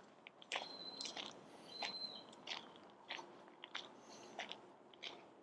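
Footsteps crunching on a trail at a steady walking pace, about one step every half to two-thirds of a second. Two short, steady high whistling tones sound in the first two seconds.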